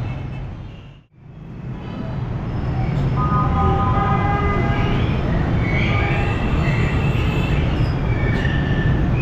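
Busy street traffic: a steady rumble of engines from cars, motorbikes and auto-rickshaws, with several vehicle horns sounding from about three seconds in. The sound drops out briefly about a second in and swells back.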